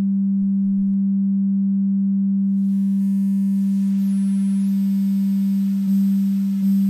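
Steady low sine-wave tone from the Unfiltered Audio LION software synthesizer, held on one pitch. About two and a half seconds in, the bitcrusher's bit depth and sample rate are turned down, adding a high fizzing noise and a thin high whistle that dips and comes back.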